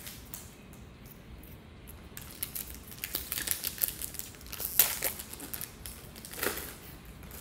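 Foil wrapper of a Pokémon TCG booster pack crinkling as it is handled and opened. The crackling starts about two seconds in, runs in quick irregular bursts with the loudest near the middle, and gives one more burst near the end.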